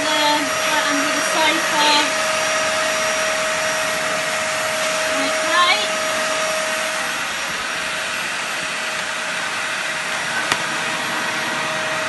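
Upright vacuum cleaner running steadily, drawing air through its extension wand and nozzle attachment, with a constant motor whine over the rush of suction.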